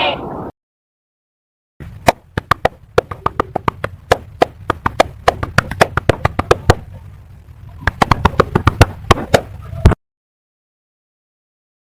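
Hands clapping: sharp, irregular claps a few per second for about eight seconds, then cutting off abruptly. In the first half second, the end of a cheering crowd fades out.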